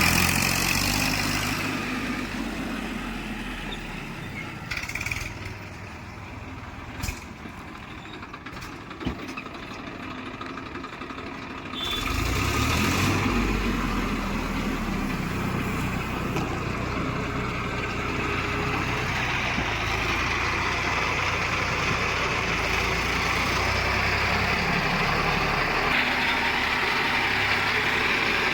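Heavy diesel engine of a tractor or backhoe running, easing off for several seconds with a few sharp clicks, then running louder again from about halfway through.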